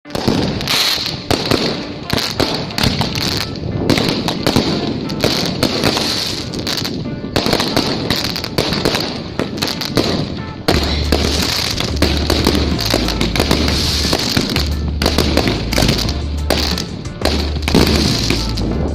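Fireworks going off thick and fast, a continuous run of sharp cracks and bangs. About ten seconds in, music with a heavy, pulsing bass starts up underneath.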